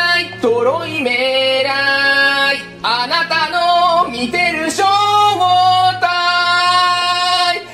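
Background song: a singing voice holding long notes over a steady low accompaniment.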